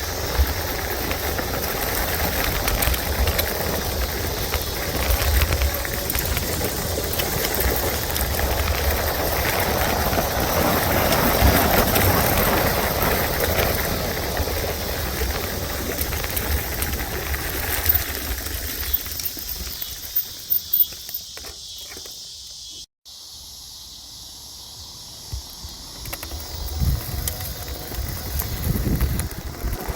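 Wind buffeting and road rumble on a phone microphone mounted on the handlebars of an electric bike being ridden. A few sharp knocks come around eighteen to twenty-one seconds in; after a brief dropout near twenty-three seconds the noise is quieter.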